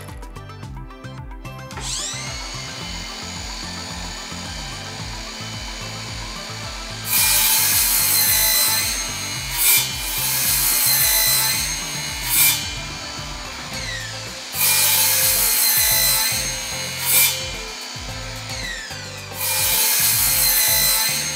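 Ryobi 18V ONE+ cordless 190mm sliding mitre saw, its 40-tooth carbide-tipped blade spinning up with a rising whine about two seconds in. It then makes about four loud cuts through 20mm pine square trim, each lasting a couple of seconds, and the motor's whine falls away as the blade winds down between cuts.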